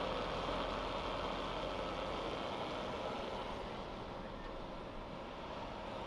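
Steady running noise of the Ultra Heavy-Lift Amphibious Connector prototype's engine, heard close beside its tracks, easing off slightly toward the end.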